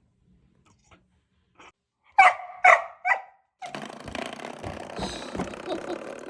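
An Australian Shepherd barks three times in quick succession, loud and short. About a second later comes a few seconds of continuous rough noise.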